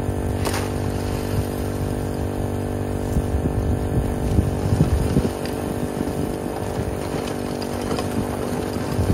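Small Honda gas engine water pump running steadily, supplying water to a highbanker sluice. Shovels scrape and crunch into river gravel over it, loudest a few seconds in.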